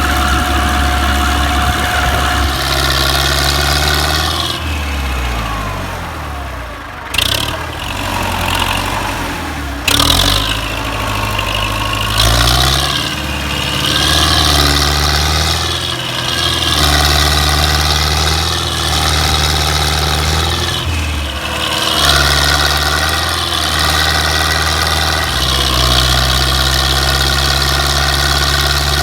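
Belarus tractor's diesel engine running, its speed dropping and picking up again several times, with two sharp clicks around a third of the way in.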